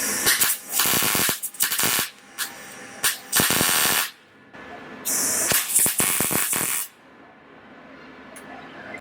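Wire-feed welder laying tack welds on a steel frame: several short bursts of crackling arc with pauses between, the longest, nearly two seconds, in the second half.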